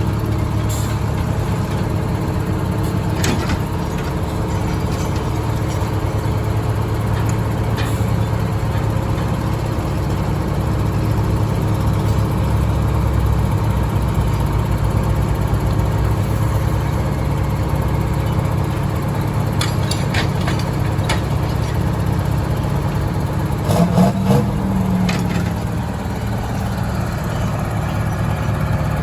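Large old engine of a piece of vintage construction machinery running steadily, with a few sharp clacks and a brief louder surge about three-quarters of the way through.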